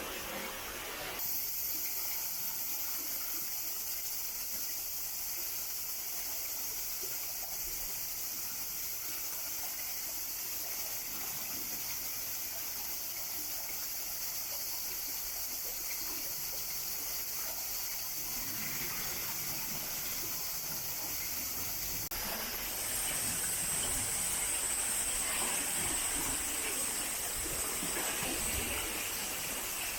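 Swollen spring-fed river rushing steadily at high water. The sound shifts abruptly about a second in and again around twenty-two seconds, as the view changes to another stretch of water.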